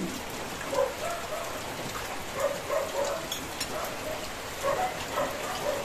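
Steady hiss of rain falling on a corrugated metal roof, with a few faint short murmurs in the background.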